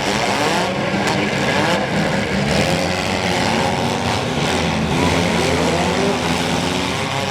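Several four-cylinder demolition derby car engines running and revving at once, their pitches rising and falling over one another in a dense, loud mix.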